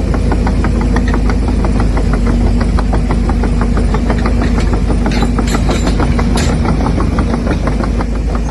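Radio-controlled construction model's electric motor running with a steady whine, accompanied by rapid clicking and rattling. A few louder scraping rasps come about five to six and a half seconds in.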